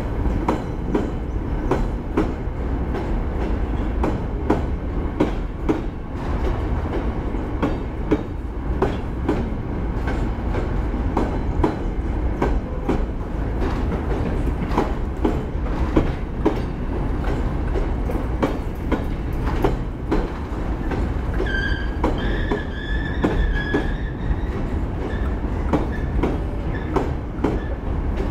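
Empty coal wagons of a freight train rolling past, their wheels clattering and knocking over the rail joints over a steady low rumble. About three quarters of the way through, a thin high squeal from the running gear rises over the rumble for a couple of seconds.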